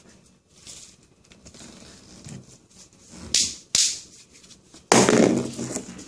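Handling noise as a loose hub bolt and the steering knuckle are handled by hand. Two short sharp scrapes or clicks come a little past the middle, then a louder rustling clatter about five seconds in.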